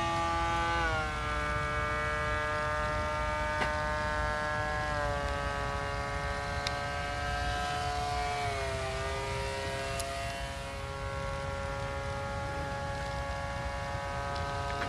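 The motor of a Robbe Skyflex 2000 model powered kite, running in flight with a steady buzzing hum whose pitch drops in three small steps as the throttle is eased back. A low rumble of wind on the microphone lies underneath.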